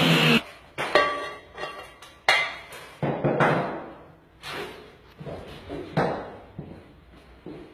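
Angle grinder cutting ceramic tile, stopping about half a second in. Then a dozen or so irregular sharp knocks and clinks of ceramic tile and offcuts being handled and set down, some with a short ring.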